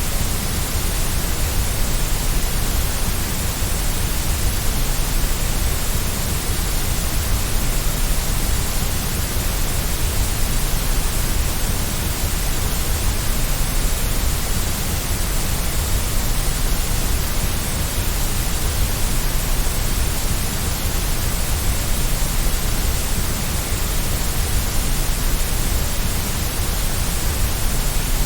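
Continuous white noise: a steady, even hiss that does not change.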